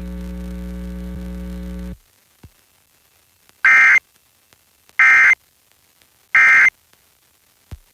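A steady electrical hum for about two seconds, then cuts off. After a short silence come three short bursts of Emergency Alert System SAME data tones, each about a third of a second and a little over a second apart: the end-of-message code that closes the required monthly test.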